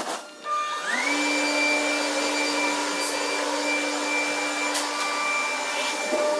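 A high-speed electric workshop machine starts up about a second in. Its whine rises quickly, then holds steady over a rush of air.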